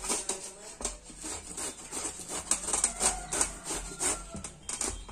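Peeled bottle gourd being grated on a flat stainless-steel grater: repeated rasping strokes, about two a second, as the gourd is rubbed up and down the blades.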